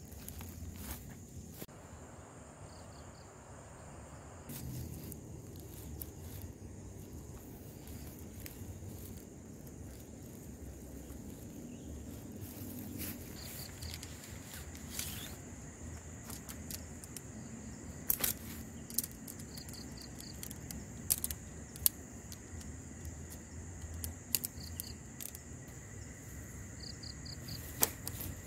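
Tent being pitched by hand: fabric rustling and handling noise, with a few sharp clicks from the tent poles in the second half. Behind it is a steady high insect drone with short pulsed chirps now and then.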